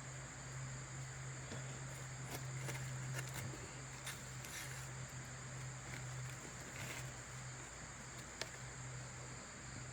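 Steady high insect chirring with a steady low hum underneath, and scattered soft rustles and clicks of hands digging through garden soil for potatoes.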